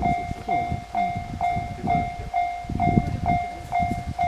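Japanese level crossing warning bell ringing in its regular ding-ding rhythm, about two strokes a second, over the low rumble of a train running through the crossing.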